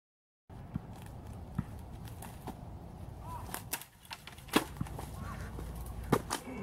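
Dead silence for about half a second, then footsteps on dry leaf litter and twigs: irregular crunches and sharp snaps over a steady low outdoor background.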